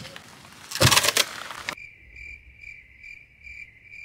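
A brief noisy clatter about a second in. Then the background cuts out suddenly to a cricket chirping sound effect: evenly spaced high chirps, about two a second. It is the comic 'crickets' gag for a joke that gets no answer.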